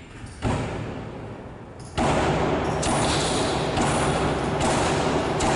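A thump about half a second in, then a loud, steady rushing noise from about two seconds on.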